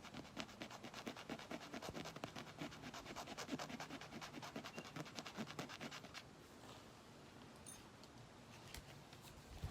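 Small metal scuffer from a bicycle tube patch kit rasped rapidly back and forth over a rubber inner tube, roughing the surface so the patch will stick. The scraping stops about six seconds in.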